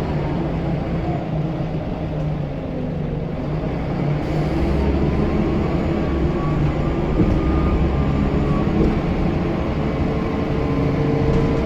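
Scania L94UB bus's diesel engine running steadily under way, with a faint turbo whistle that rises in pitch partway through and holds.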